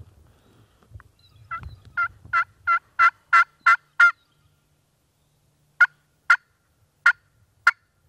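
Hen turkey calling imitated on a turkey call by a hunter: a run of about eight evenly spaced yelps that grow louder, then four short, sharp clucks. It is hen talk meant to draw a gobbler in.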